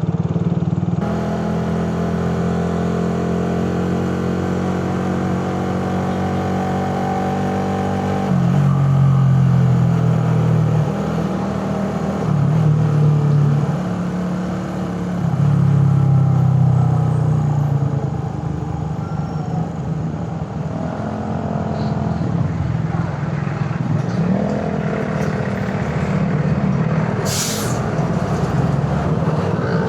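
Suzuki Raider 150 carb's single-cylinder four-stroke engine running under way, its note rising and falling as the rider changes speed and gears. A brief hiss comes near the end.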